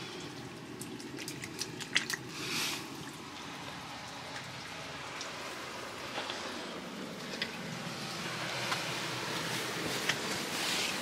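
Warm spring water trickling and dripping over rock in a small rock hollow, a steady splashing hiss with scattered drips. Brief rustles and knocks of clothing and a hand on the rock come and go over it.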